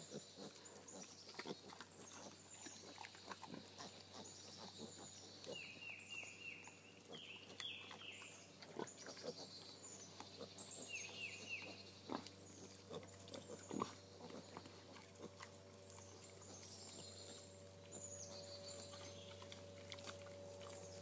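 Sow and one-week-old piglets grunting faintly now and then as they root about, with high chirping calls in the background.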